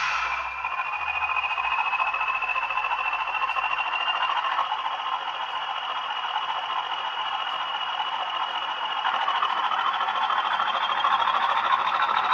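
Sound-fitted Bachmann Class 20 model diesel locomotive running, its small speaker playing the engine sound with a high whistle that climbs slowly in pitch, over the noise of the model's running. A short click at the very start.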